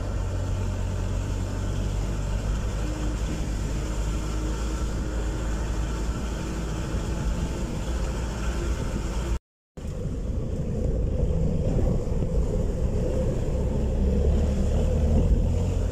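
Steady low rumble of a moving road vehicle, with a brief cut to silence about halfway through, after which the rumble comes back slightly louder.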